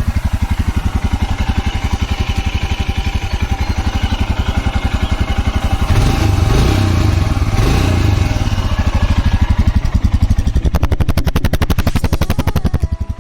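Royal Enfield Himalayan BS6's 411 cc single-cylinder engine idling through its exhaust with a steady, even thump, heard close up. About six seconds in it is revved briefly, the note rising and falling back to idle.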